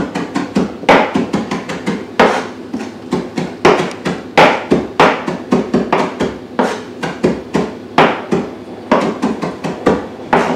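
Chef's knife rapidly chopping a pile of fresh coriander on a plastic cutting board: a quick, uneven run of sharp knocks, about four a second.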